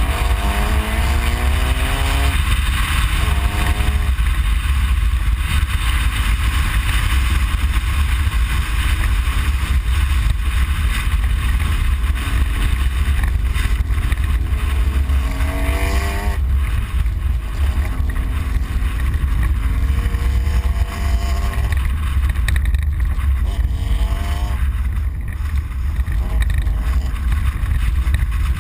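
Ford Explorer prerunner race truck heard from inside the cab at speed: the engine repeatedly climbs in pitch under hard acceleration and drops back, about five times, over a heavy, constant low rumble.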